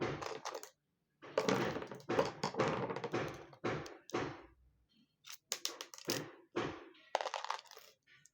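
Short scraping and clicking strokes, one after another, as the Samsung Galaxy S6 is carefully pried apart by hand.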